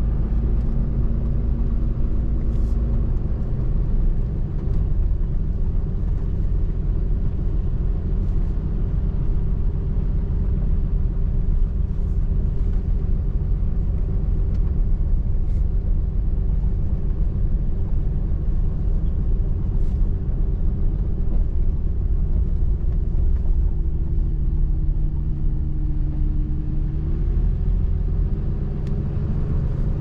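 Pickup truck driving on a wet dirt road, heard from inside the cab: a steady low rumble of engine and tyres, with a few faint ticks. The engine note shifts and rises slightly near the end.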